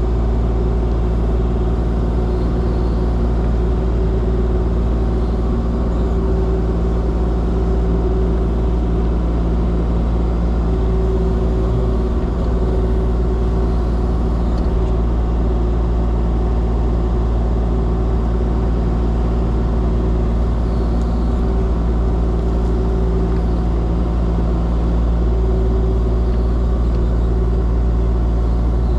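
Kubota KX040 mini excavator's diesel engine running steadily at an even pitch, a constant low hum with no changes in speed.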